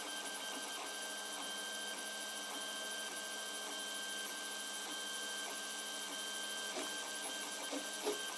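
3D printer running a print: a steady stepper-motor whine holding a few fixed pitches, with a few faint clicks near the end.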